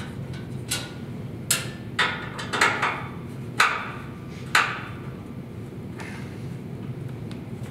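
Screwdriver working on the sheet-metal base cabinet panel of a Delta bandsaw while its screws are taken out to get at the drive belt: a string of about seven sharp metallic clicks and knocks in the first half, each ringing briefly. A steady low hum runs underneath.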